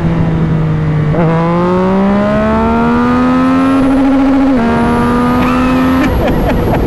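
Yamaha XSR900's inline-three engine pulling hard through a full titanium aftermarket exhaust, its note rising steadily under throttle. One upshift drops the pitch about four and a half seconds in, and the note climbs again. Near the end the throttle closes and a few short pops come from the exhaust, over wind rush.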